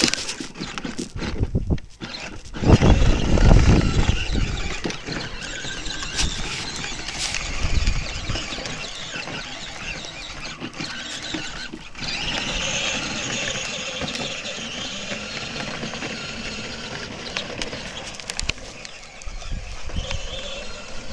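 Battery-powered Power Wheels kids' ATV driving over dirt, its electric motors and gearboxes whining, steadiest in the second half. A loud low rumble comes about three seconds in.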